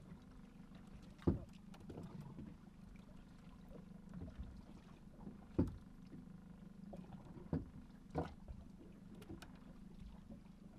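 Small fishing boat's engine idling steadily with a low hum. Several sharp knocks sound against it: about a second in, near the middle, and twice more soon after.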